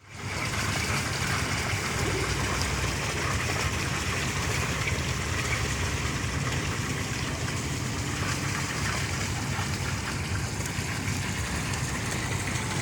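Fish-pond waterfall: water falling and splashing steadily into the pond, an even rushing sound.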